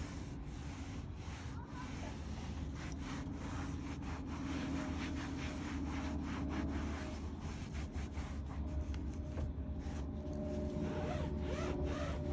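Microfiber towel rubbing over a textured plastic interior door panel in a run of quick wiping strokes, buffing vinyl-and-plastic protectant into scuffed trim.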